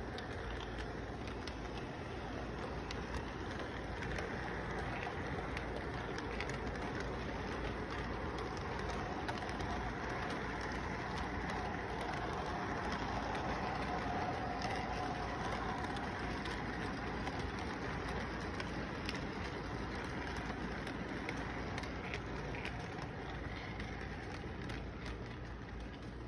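Model train running on its track: steady rolling and rattling of the wheels with many small clicks, under a faint electric motor hum. It gets a little louder about halfway through as the cars pass close by, then eases off.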